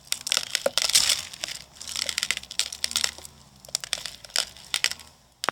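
Crunchy slime being squeezed and kneaded with plastic beads mixed in, giving bursts of crackling and crinkling in clumps, with short pauses between.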